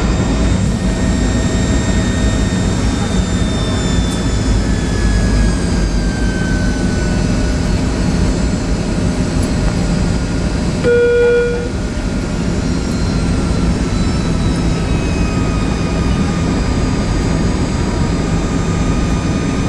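Airliner cabin noise of a Tupolev Tu-204-100E on its landing descent: a steady low rumble and rush of air, with the engines' faint whines slowly shifting in pitch. A single short electronic beep sounds about eleven seconds in.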